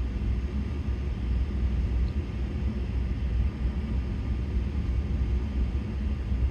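Steady low rumble with a faint hiss: background room noise, with no distinct event.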